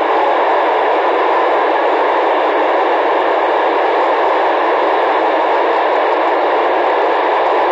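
Steady hiss of an FM radio receiver with its squelch open on the PO-101 satellite downlink, no voice coming through. The noise is narrow, as through a radio speaker, with no low end.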